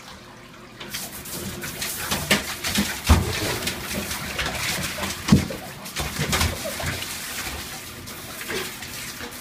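Siberian husky puppy whining and yowling in low, cooing calls during a bath, over continuous water noise with sudden splashes and knocks.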